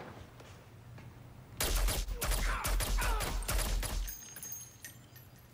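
Rapid gunfire from a TV drama's shootout: a burst of about a dozen shots over two and a half seconds, starting a little way in, with a deep rumble under it. As it stops, faint high clinks follow.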